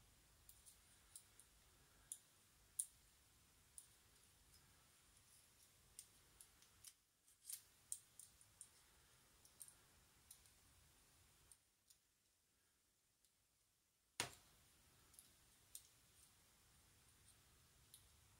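Faint, irregular small metal clicks and taps from a lock cylinder and its parts being handled and worked with a small tool, with one sharper click a few seconds before the end.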